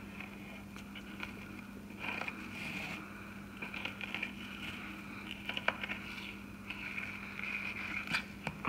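Knife slicing a fillet off a small redfin perch on a plastic cutting board: soft scraping cuts and a few sharp clicks of the blade against the board, over a steady low hum.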